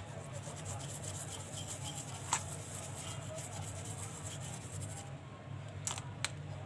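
Toothbrush bristles scrubbing a walkie-talkie's circuit board, cleaning freshly desoldered points with motherboard cleaner: a fast, steady scratching that stops about five seconds in. Two sharp clicks follow near the end.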